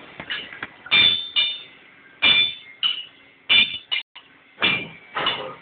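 A hammer striking metal, about eight blows at uneven intervals, each one ringing briefly.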